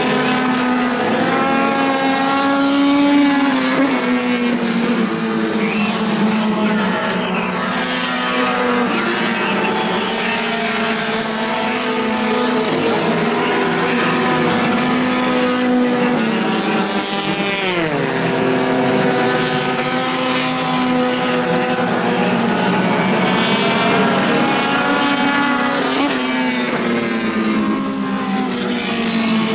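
Several four-cylinder dirt-track race cars' engines running around the oval, overlapping, their pitch rising and falling as they accelerate, lift off and pass; one engine drops steeply in pitch a little past halfway.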